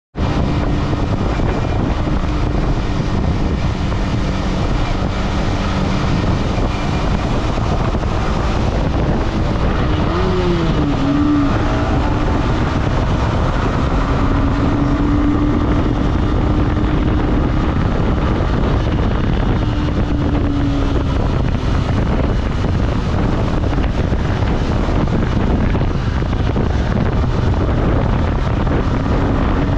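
Yamaha R15M's single-cylinder engine running through its stock exhaust while riding, under steady wind and road noise. The engine pitch rises and falls briefly about a third of the way in, then holds steady.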